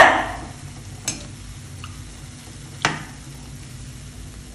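Banana and wheat-flour fritters deep-frying in hot oil with a steady sizzle. A metal utensil taps the pan twice, about a second in and more loudly near three seconds, as the fritters are turned.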